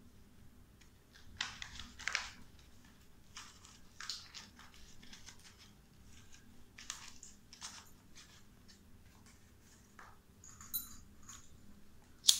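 Grey parrot moving about on a tiled floor: a handful of short, scattered scratches and crunches a second or more apart, with a brief high sound about eleven seconds in and a sharp click near the end.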